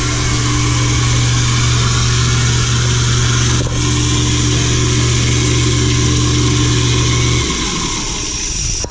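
Newly installed Moen garbage disposal running with a steady electric-motor hum, with a rushing hiss of running water over it. The motor switches off about seven and a half seconds in while the water keeps running. It sounds really good: the new unit works.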